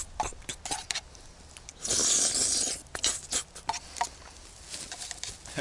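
Close handling noises: scattered light clicks and taps, with a rustle lasting about a second, about two seconds in.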